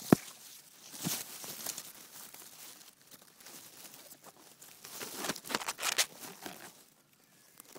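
Grass blades rustling and crackling against a phone's microphone as it is moved about and set down in tall grass, with a sharp knock right at the start.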